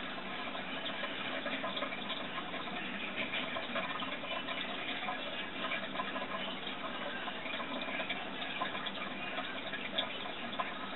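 Steady running and bubbling water in an aquarium tank, an even, slightly crackly wash without breaks.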